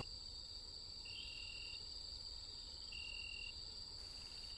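Faint chorus of night insects, probably crickets: a steady high-pitched trill, with a separate half-second chirp repeating every couple of seconds.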